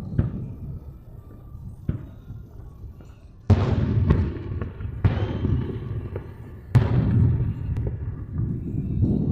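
Aerial fireworks shells bursting: two faint pops early on, then three sharp booms about a second and a half apart, each trailing off in a long rumbling echo.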